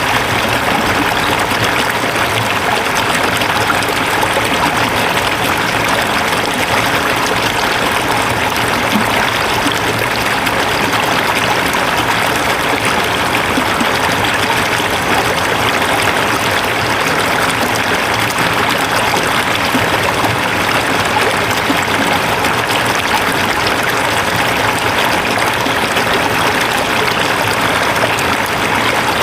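Mountain valley stream flowing over rocks: steady, loud rushing water with no breaks.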